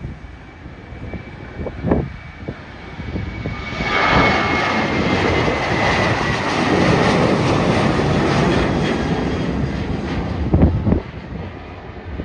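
Boeing 737-700's CFM56 jet engines at takeoff thrust as the airliner climbs out overhead. The rush swells about four seconds in, with a high whine that slowly falls in pitch, then eases near the end. Short thumps come near the start and near the end.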